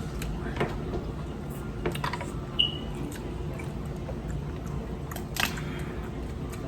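Close-up chewing and lip-smacking on seafood boil, with scattered short wet clicks, the sharpest about five seconds in, over a low steady hum.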